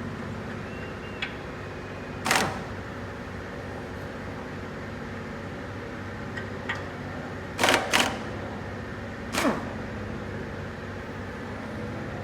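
A steady machine hum with a few sharp knocks on top, two of them in quick succession about eight seconds in.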